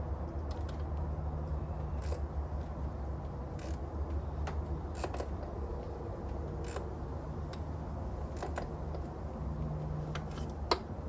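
Scattered metallic clicks and clinks of a ratchet and socket tightening a top fastener on a 5.7 Hemi engine, with one sharper click near the end. A steady low hum runs underneath.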